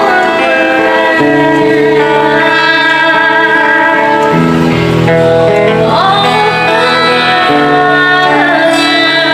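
Background song: a plucked guitar accompaniment with a female voice singing, the chords changing every second or so.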